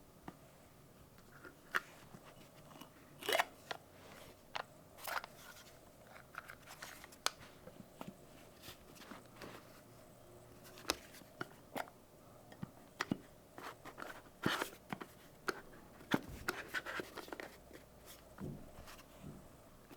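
Packaging being handled during an unboxing: scattered, irregular crinkles, clicks and light scrapes, with a few louder taps.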